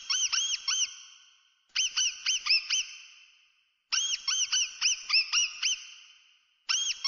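Mouse squeak sound effect: quick runs of four to six short, high squeaks, each rising and falling in pitch. Each run trails off in a brief echo, and the runs repeat about every two seconds.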